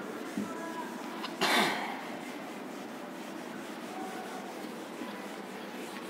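A hand wiping marker writing off a whiteboard, a soft rubbing over steady room hiss, with one short louder rush of noise about a second and a half in.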